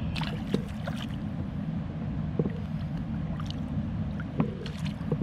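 Stream water running steadily with a low rush, with scattered short clicks and knocks on top.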